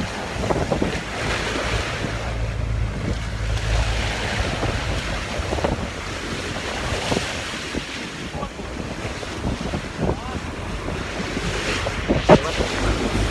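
Sea waves washing and surging, with wind buffeting the microphone in a low rumble that is heaviest in the first few seconds. One sudden louder sound stands out near the end.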